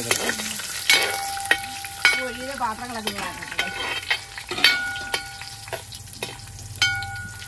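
Perforated metal ladle scraping and clinking against a large metal pot while dried red chillies and whole spices sizzle as they fry in oil. The ladle's knocks come irregularly, about a dozen of them, each ringing briefly.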